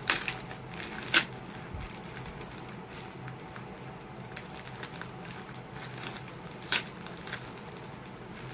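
White plastic courier mailer bag crinkling as it is picked at and torn open by hand, with a few sharp crackles, the loudest just after a second in and another toward the end.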